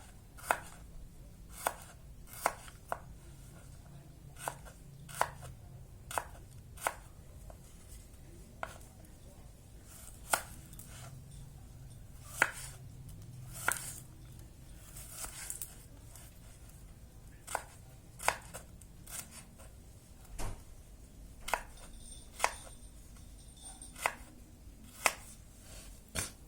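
Kitchen knife slicing shallots by hand: slow, unevenly spaced cuts, each a sharp knock, about one a second with a few short pauses.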